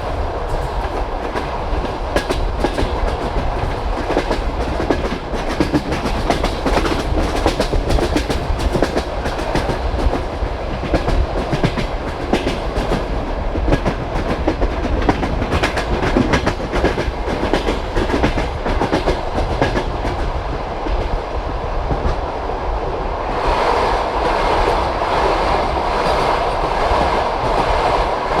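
Passenger train carriage running at speed, its wheels clattering over the rail joints under a steady rumble. About 23 seconds in, the sound turns louder and brighter.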